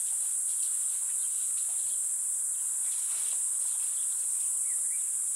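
Steady, high-pitched insect chorus.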